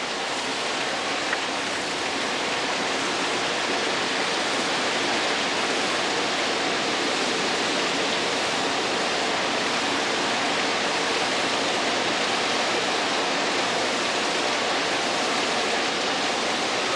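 Steady rushing of water spilling through the base and seams of a river navigation lock's steel gates.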